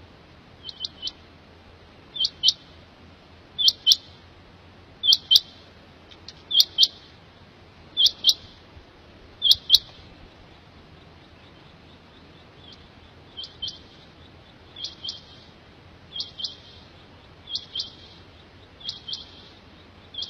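Quail (batair) calling: a short phrase of two or three quick, high, sharp notes, repeated about every one and a half seconds. Seven phrases come in a row, then after a pause of about three seconds six more follow, somewhat softer.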